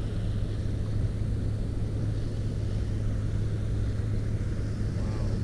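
Boat motor running steadily, a low even hum over a faint rumble of wind and water.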